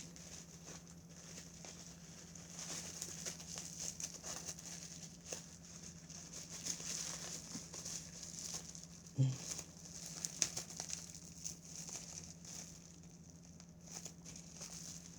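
A mailed package being worked open by hand: irregular crinkling and rustling of its wrapping, over a steady low hum, with one brief louder low sound about nine seconds in.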